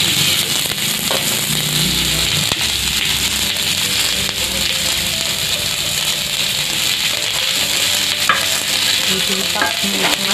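Sliced onions, chillies and small dried fish sizzling steadily in a little hot oil in a black iron pan, with a couple of sharp clicks near the end.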